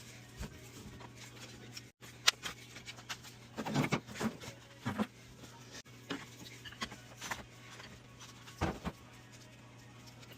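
Irregular clicks and knocks of hands handling and working on the plastic parts of a Clack water softener control valve, over a steady low hum.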